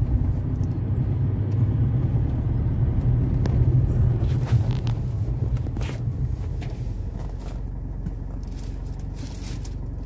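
Car engine and road rumble heard from inside the cabin while driving, a steady low drone that eases off and grows quieter in the second half.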